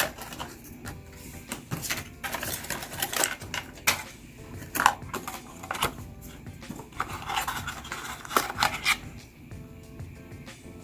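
Hands handling a smartphone and its packaging: a run of sharp clicks, taps and rubbing scrapes of small hard objects, over soft background music.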